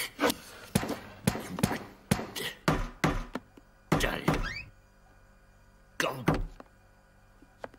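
Fist knocking on a door in short bouts of heavy thuds, about three seconds in, at four seconds and again at six, with lighter taps and clicks in the first two seconds. A brief rising voice sound follows the middle bout.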